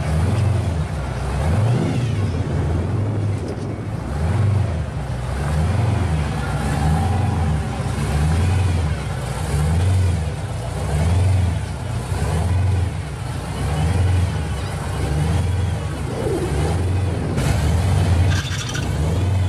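Supercharged V8 of a pro street drag car idling and creeping along with a heavy, lopey rhythm, its exhaust note swelling about once a second.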